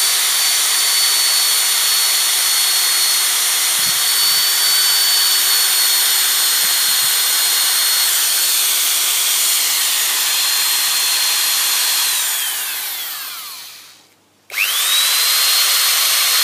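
Corded electric drill running at speed with a steady high whine, its 2 mm bit drilling a pilot hole into a Victorian vulcanite bottle stopper. About twelve seconds in the drill winds down to a stop, then starts up again briefly near the end.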